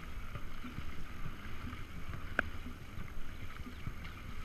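Dragon boat paddles dipping and pulling through the water in a steady rhythm, with water splashing along the hull. A single sharp knock comes about halfway through.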